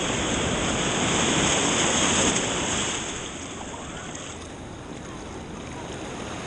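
Shallow surf washing and sloshing around a person wading through it. The rush is loudest for the first three seconds, then eases.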